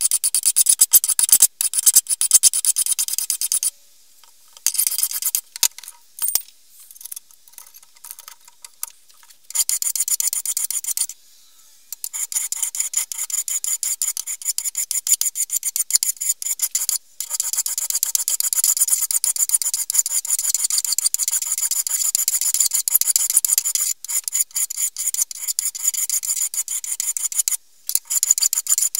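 Hand file rasping across the steel of an axe head clamped in a vise, filing the cutting edge in repeated strokes. The filing breaks off for a few seconds about four seconds in, then runs on steadily through most of the rest.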